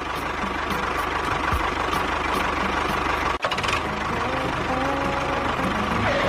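Steady engine-like running noise, with a brief break about three and a half seconds in.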